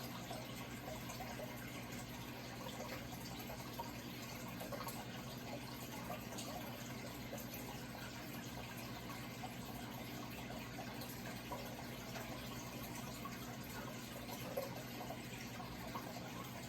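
Running water trickling and bubbling steadily, with a steady low hum underneath.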